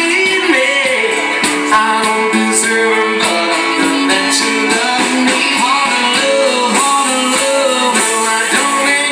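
Live band music: a country ballad played on strummed acoustic guitar and electric guitar.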